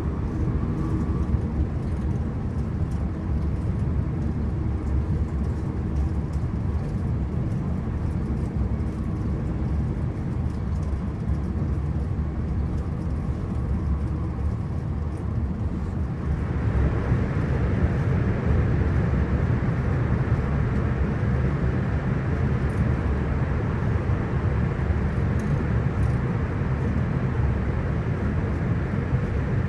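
Cabin noise inside a Hitachi AT300 electric passenger train running along the line: a steady rumble of wheels on rail, with faint small rattles. About halfway through, the noise suddenly gets louder and brighter, with more hiss, and stays that way.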